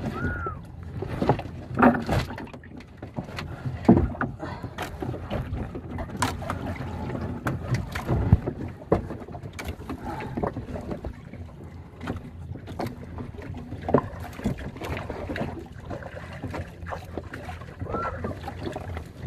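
Irregular knocks and bumps from someone climbing about and handling things inside a wooden outrigger boat at sea. Under them runs a steady low noise of the boat on the water.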